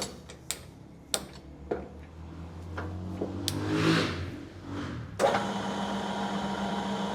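A few clicks of the controls, then about five seconds in a small metal lathe starts and runs steadily at slow speed. It is turning a steel shaft held in a fixed steady whose fingers have just been oiled, a slow first run to spread the oil.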